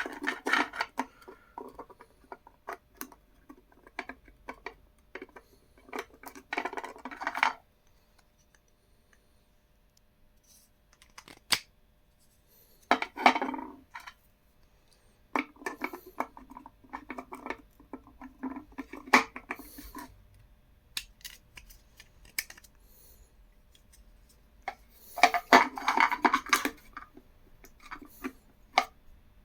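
A 3D-printed plastic connector and its copper posts being handled and pushed into place on an inverter: clicks, scrapes and light clattering of plastic and metal in several bursts, with a quiet gap of a few seconds partway through.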